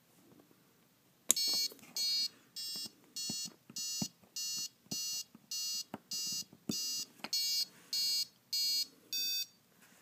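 Piezo buzzer on a Super Bee gas kill switch beeping about fourteen times, short high electronic beeps roughly one and a half a second, the last one at a different, lower pitch. The beeps sound as the kill switch's dip switch is flicked up and down to step the receiver battery's low-voltage cutoff setting.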